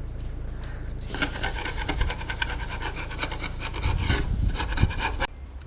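A hand file rasping against the boat's keel in quick repeated strokes, filing rust off the metal. The filing starts about a second in and cuts off abruptly near the end.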